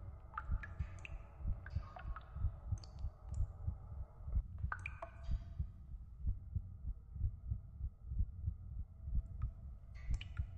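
Heartbeat sound effect: regular low thumps, about two a second, with short high chirps scattered over it and a faint hum that drops away about four seconds in.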